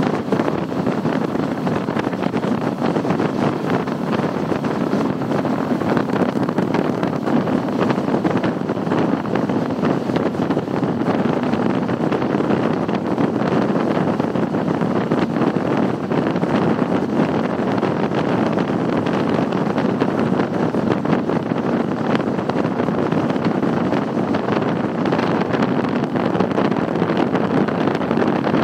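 Triple Mercury 600 hp V12 Verado outboards running steadily at speed, mixed with rushing wind on the microphone.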